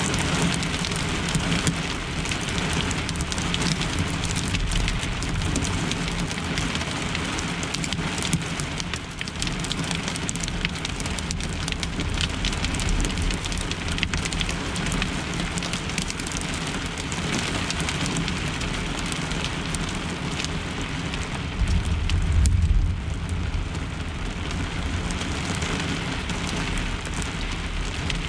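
Heavy rain and small hail drumming on a pickup truck's camper shell, heard from inside as a dense, steady patter of small impacts. About three-quarters of the way through, a louder low rumble rises and fades over a second or two.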